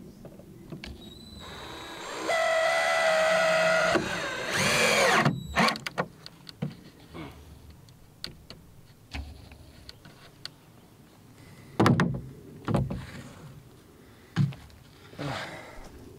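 Electric drill running a screw in: a steady motor whine for a couple of seconds, then the pitch wavers and glides as it works the screw home. Several scattered knocks and clatters of wood and tools being handled follow.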